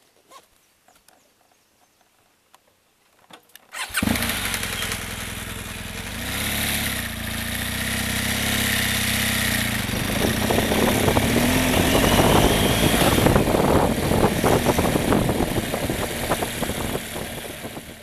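BMW R1200GS Adventure's boxer twin engine starting suddenly about four seconds in, then running and revving up. From about ten seconds in the bike is under way on a dirt road, with the engine joined by frequent knocks and rattles from the rough surface.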